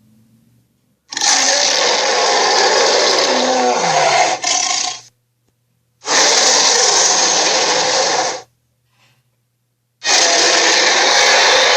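Animated-film Tyrannosaurus roar sound effects: three long, harsh roars, the first about four seconds, the second shorter, the third starting near the end, with short silences between.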